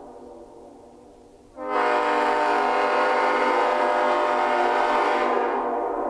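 Nathan Airchime K5LLA five-chime locomotive air horn. The tail of one blast fades away, then about a second and a half in a new blast starts sharply: a loud, steady chord of all the bells, held for about three and a half seconds and dying away near the end.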